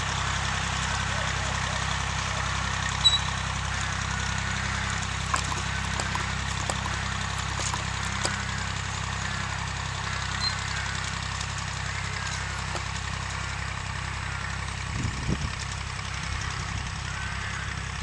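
Vintage tractor engine running steadily at low revs as it pulls a seed drill across ploughed ground, with a few light knocks and clicks over it.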